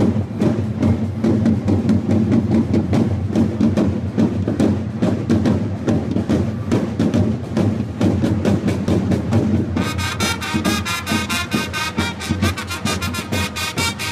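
A corps of marching side drums playing a fast, steady rhythm. About ten seconds in, a high-pitched wind instrument joins in with a melody over the drumming.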